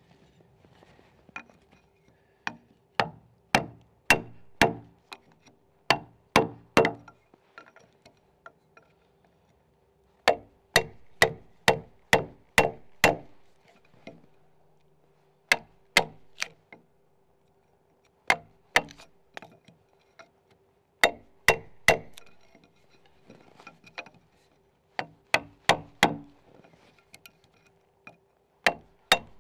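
Wide wood chisel driven into a log with sharp metal-on-metal blows from the back of an axe, in runs of several quick strikes with short pauses between them, cutting out the cog of a Scandinavian saddle notch.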